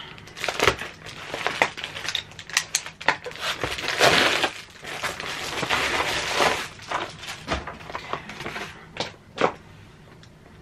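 A small package being opened by hand: plastic mailer and cardboard packaging crinkling, tearing and rustling, in a run of short sharp cracks with a longer tearing rustle about four seconds in.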